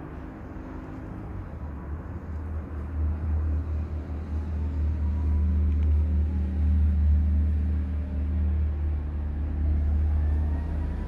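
Steady low rumble that swells about two seconds in, with a faint siren wail rising near the end.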